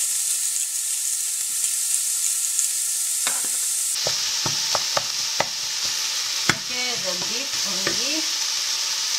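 Minced beef and chopped vegetables sizzling in a hot frying pan. About three seconds in, a wooden spoon starts stirring and breaking up the meat, knocking sharply against the pan several times over the sizzle.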